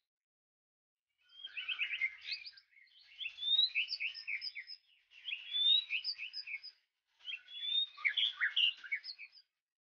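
White-rumped shama singing: four phrases of varied whistles and rapid trills, each lasting about two seconds, with short pauses between them.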